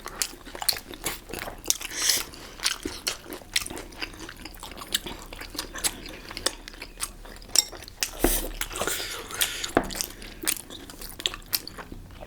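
Close-miked chewing of momo dumplings: a steady run of wet mouth smacks and bites, with some crunchy crackles.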